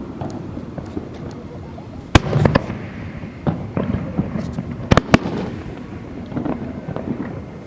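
Aerial fireworks bursting: sharp bangs about two seconds in and a close pair around five seconds, with smaller pops and crackles between them over a continuous low rumble.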